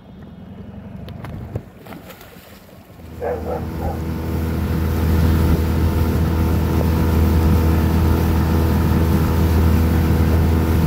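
A boat motor starts up about three seconds in and settles into a steady run, getting louder over the next two seconds.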